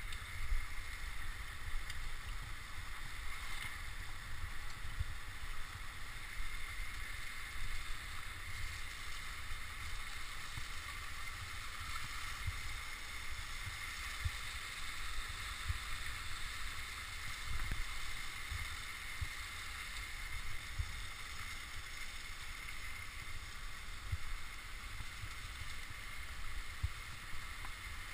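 Waterfall rushing steadily over rock, with irregular low rumbles and knocks on the microphone as the camera moves.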